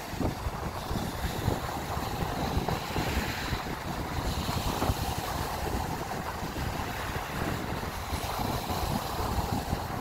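Sea surf: waves breaking offshore and foam washing up a sandy beach in a steady wash. Wind buffets the microphone throughout as an irregular low rumble.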